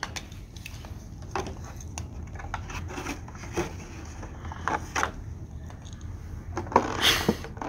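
Light clicks, crinkles and rustles of plastic toy packaging being handled, with a louder rustle near the end.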